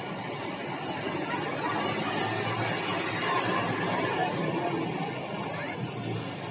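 Roadside traffic noise, a steady haze of engine and tyre sound, with voices in the background.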